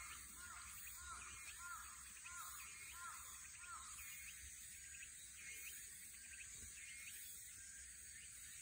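Faint outdoor background with a bird calling: a run of short repeated calls, about two a second, that stops about four seconds in.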